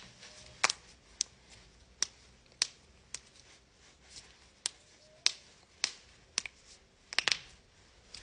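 Joints being cracked: about a dozen sharp, loud pops at irregular intervals, with a quick pair about seven seconds in.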